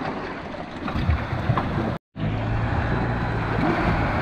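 Steady low engine hum under wind noise on the microphone, with a few low thumps early on. The sound breaks off for a moment about two seconds in.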